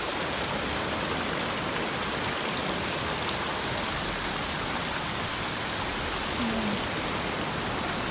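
Mountain stream rushing steadily: a constant, even wash of flowing water.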